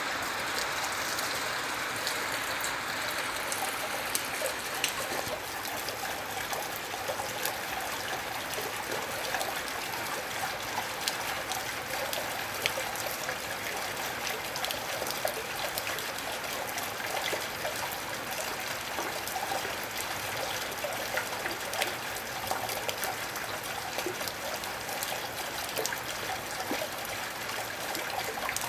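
Gentle, steady rain falling, a constant wash of water with many individual drops ticking through it.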